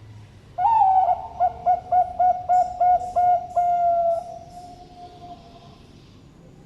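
Zebra dove (Bangkok perkutut) cooing one complete song: a long opening note, a quick run of about seven short coos, then a long held final note that fades out.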